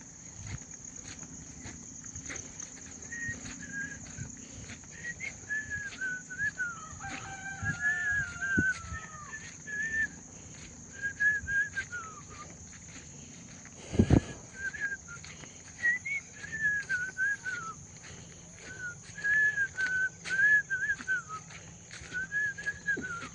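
Chickens calling with short, wavering high calls again and again, over a steady high insect drone. One sharp knock about fourteen seconds in.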